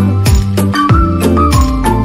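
Background music with a steady beat of deep kick drum thumps and a melody over it.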